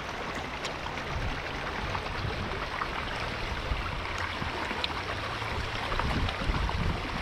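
Steady rushing of flowing creek water, with a few low bumps near the end.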